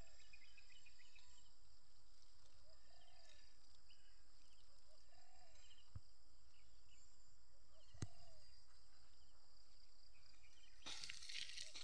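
Insects droning steadily at a high pitch, with scattered bird chirps and a short low call that repeats every two to three seconds. A brief rustling noise comes near the end.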